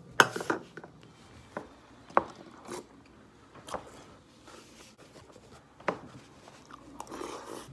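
Bowl of cereal with milk being eaten: a metal spoon clicks and scrapes against a plastic bowl, with crunching and chewing, in scattered sharp clicks about a second apart.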